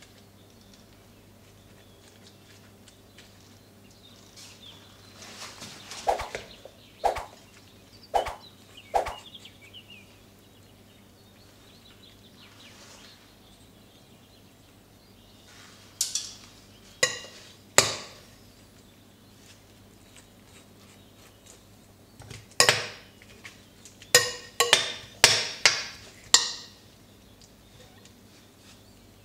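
Kitchen utensils and dishes knocking and clinking in short irregular clusters: a few knocks a little way in, two more around the middle, and a quicker run of about six near the end, over a faint steady hum.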